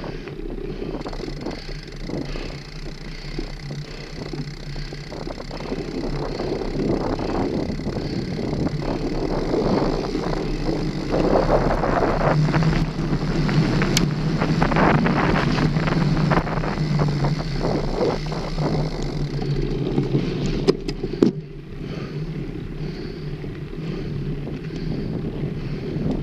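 Mountain bike riding along a dirt trail: tyres rolling with a steady low hum that grows louder through the middle, and wind buffeting the microphone. A few sharp knocks of the bike rattling over bumps come about three quarters of the way through.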